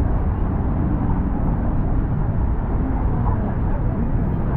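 Outdoor city ambience: a steady low rumble, with no single event standing out.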